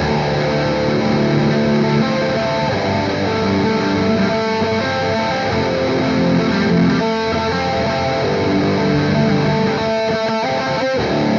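Electric guitar playing sustained chords and a riff line through modulation and delay effects, the chords changing every few seconds.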